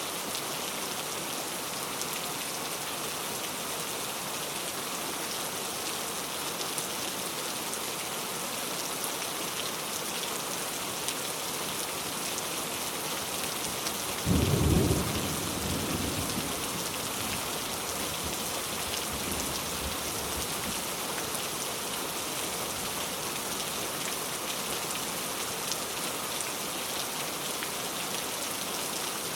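Heavy rain falling steadily on a road, an even hiss of drops. About halfway through, a sudden low rumble lasts about a second and fades over the next two.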